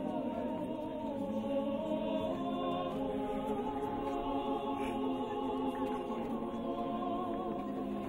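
Mixed choir of women's and men's voices singing a slow memorial hymn in long, held chords.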